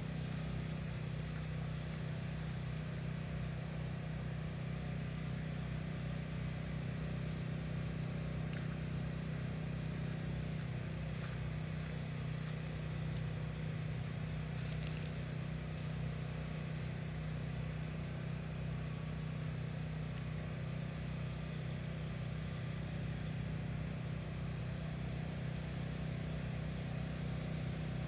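A steady low mechanical hum, an engine or motor running at a constant speed, with a few faint clicks and scrapes about halfway through.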